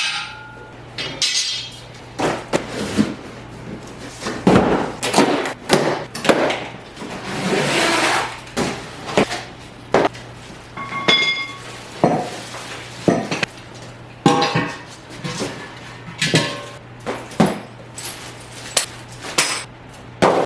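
Steel parts of an engine hoist clanking and knocking together as they are unpacked and handled, many separate hits with one ringing metallic clang about eleven seconds in, over a low steady hum.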